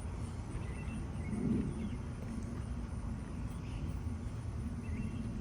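Outdoor garden ambience: a steady low rumble with a few faint, short bird chirps scattered through it.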